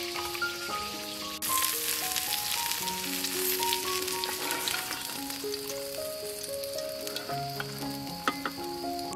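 Hot oil sizzling steadily in a frying pan as fried whole fish are lifted out, starting suddenly about a second and a half in. Background music plays a slow melody of held notes throughout.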